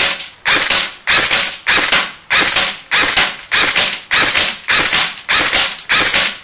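JG M5-S6 airsoft electric gun firing on single fire, a steady string of about eleven shots, one roughly every 0.6 s. Each shot is a sharp crack with a short noisy tail that fades quickly.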